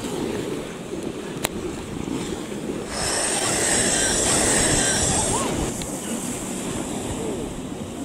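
Sea surf washing onto a sandy beach, with wind on the microphone; a louder rushing hiss swells about three seconds in and dies away after about five and a half seconds.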